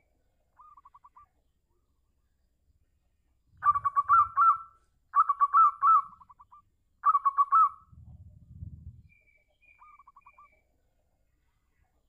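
Zebra dove (perkutut) cooing: a soft quick trill, then three loud staccato cooing phrases of rapid rising-and-falling notes about four, five and seven seconds in, and another soft trill near the end. A low rumble comes after the last loud phrase.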